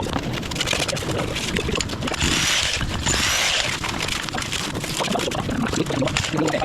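A powered machine running steadily and loud, a dense noise with a fast rattle through it.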